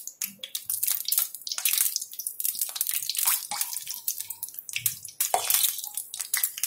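Besan-battered green chillies (mirchi pakoras) deep-frying in hot oil: a steady sizzle with many irregular crackles.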